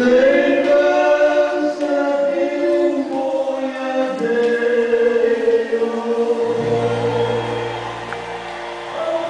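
A choir singing slow, held notes, with a low sustained note coming in about two-thirds of the way through.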